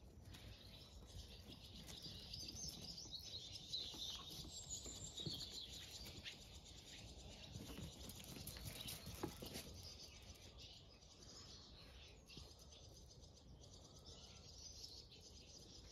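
Faint birdsong: small birds chirping and singing in the background, over a low steady rumble.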